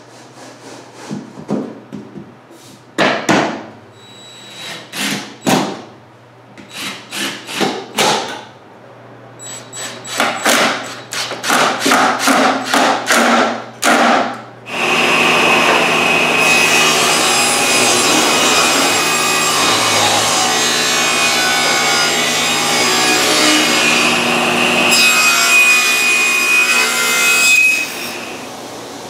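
Cordless drill/driver driving screws in many short bursts, assembling a wooden drawer and fitting its metal drawer slides. About halfway through, a power saw starts running steadily, cutting wood with a high whine.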